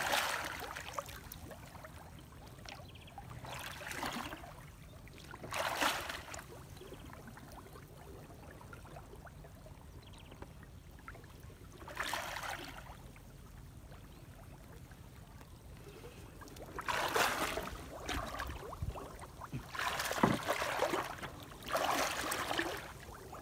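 Shallow lake water splashing and sloshing as a man wades and hauls in a fishing net, in separate splashes every few seconds, with more of them close together near the end.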